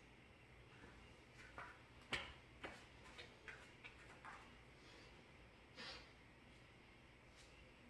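Faint, irregular taps and shuffles of a barefoot person walking across a rubber gym floor, loudest about two seconds in, then one short soft sound near six seconds in as he bends and takes hold of a kettlebell handle.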